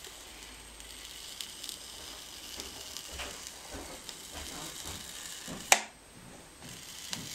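Electric Styrofoam cutter's heated tip melting a line through thick Styrofoam: a faint steady sizzle with light irregular crackles. A single sharp click comes about three-quarters of the way through.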